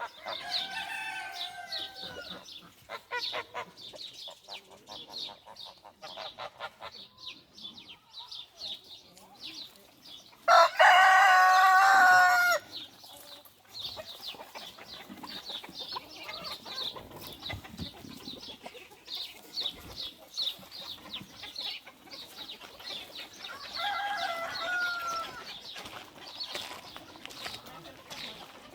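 A flock of chickens clucking and calling throughout. About ten seconds in, a rooster crows once, loudly, for about two seconds, and a few shorter calls come near the start and near the end.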